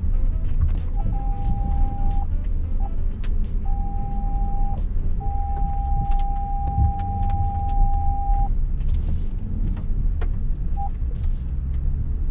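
Range Rover Autobiography crawling over a rough off-road trail: a continuous low rumble with many sharp clicks and knocks. A steady electronic warning tone at one pitch sounds on and off several times, longest from about five to eight and a half seconds in.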